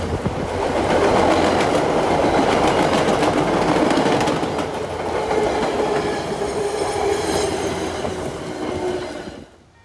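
MBTA commuter rail coaches rolling past close by: a loud, steady rumble with the wheels clicking over rail joints. The sound stops abruptly near the end.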